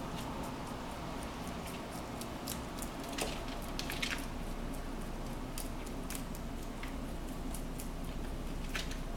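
A rabbit chewing fresh lettuce leaves: irregular crisp crunching clicks over a steady low hum.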